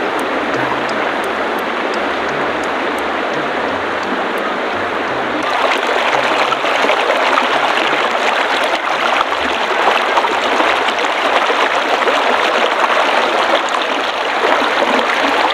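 River water flowing steadily, a dense rushing noise that gets louder about five and a half seconds in.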